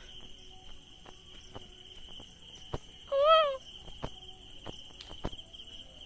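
Crickets trilling steadily, with scattered faint clicks and one short call that rises then falls about three seconds in, the loudest sound.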